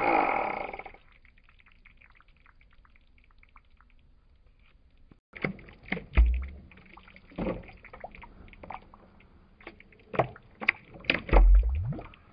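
Liquid clay slip being stirred with a thin stick in a plastic bucket: irregular wet slopping and sloshing with knocks of the stick, coming in bursts from about five seconds in, with two deep thumps. Before that, a louder sound dies away within the first second, then only faint clicks.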